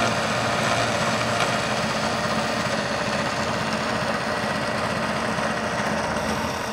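CNC milling machine's spindle and end mill cutting a square pocket through an aluminium plate: a steady machining noise with a constant whine.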